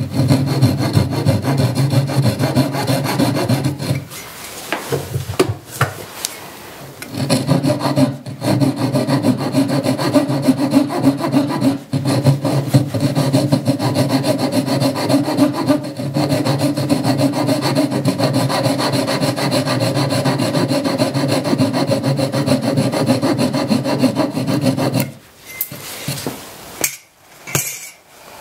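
A fine-toothed flush-cut saw sawing across the butt of a wooden screwdriver handle, trimming an inlaid dark strip flush with the end grain. It makes quick back-and-forth scraping strokes that stop for a few seconds about four seconds in, resume, and stop a few seconds before the end.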